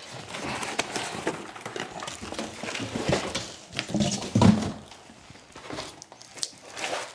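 Foam packing blocks rubbing and scraping against each other and the cardboard box as they are lifted out and set down, with a dull thump about four seconds in.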